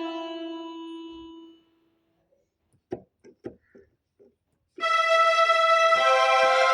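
Korg Pa-series arranger keyboard sounds being auditioned: a held note dies away over the first second and a half, a few short quiet sounds follow after a gap, then a new sustained reedy, accordion-like chord starts abruptly about five seconds in.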